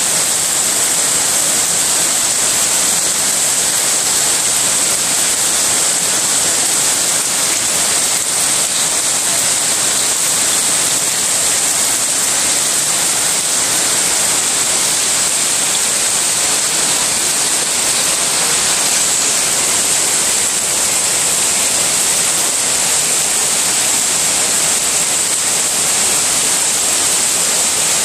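Torrential rain pouring down and splashing on brick paving and puddles, a loud, steady, unbroken hiss.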